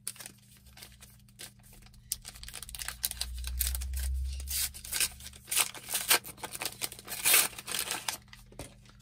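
Foil Topps Turbo Attax trading-card pack being torn open and crinkled, a run of dense rustling and crackling that grows loudest near the end.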